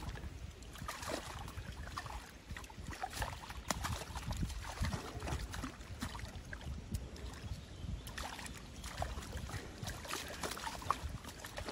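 Shallow river water splashing and sloshing around a mesh keep net as barbel are handled in it and released, with irregular small splashes and drips.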